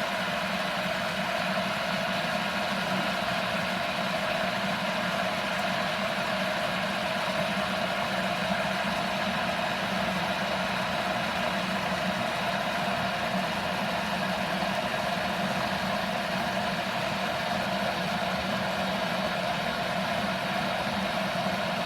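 Ninja KT200 electric kettle heating water: a steady, even rushing hum that does not change.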